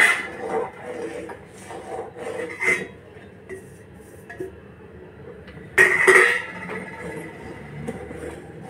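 A spatula and a steel bowl knocking and scraping against a metal kadhai as upma is stirred, with a louder metallic clank and ringing about six seconds in.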